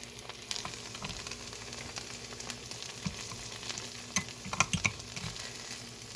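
Food sizzling steadily as it cooks in a chaffle maker, with a few sharp clicks and knocks about four to five seconds in.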